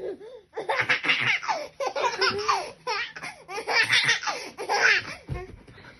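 A baby laughing in repeated bursts, with short breaks between them.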